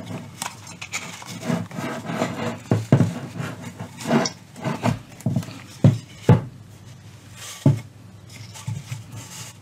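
A cotton cloth cover rustles and rubs as hands stretch its elastic-gathered edge over a Rola loudspeaker's frame. A few short knocks come from the speaker being handled, the sharpest a little past the middle.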